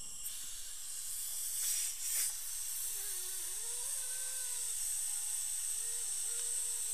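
Dental high-volume suction hissing steadily as it draws air and fluid from the mouth, switching on just after the start, with a couple of louder slurps about two seconds in.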